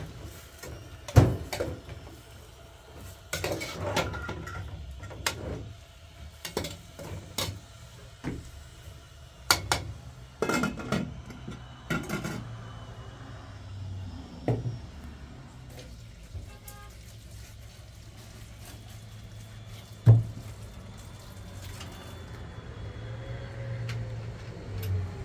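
Metal cooking pots, lids and a spoon clinking and clanking during cooking: scattered sharp knocks, the loudest about a second in and about twenty seconds in.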